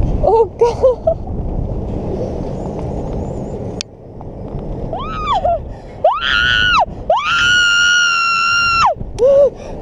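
A rider screaming on a swinging propeller thrill ride. First comes wind rushing over the microphone with a few short cries, then from about five seconds in several loud screams, the third one long and held.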